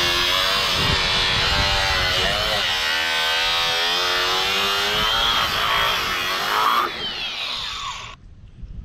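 Power saw cutting through a PVC plastic overflow pipe, its motor pitch wavering as it loads and unloads in the cut. Near the end the motor winds down and stops.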